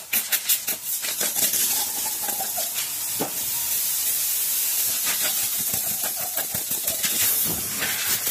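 Compressed-air blow gun hissing as it blows dust out of a pleated panel engine air filter: short blasts, then a longer steady blast from about two to five seconds in, then short blasts again.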